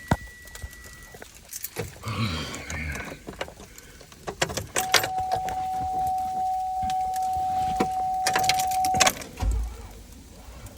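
Keys jangling and clicking, with a steady electronic tone held for about four seconds in the middle.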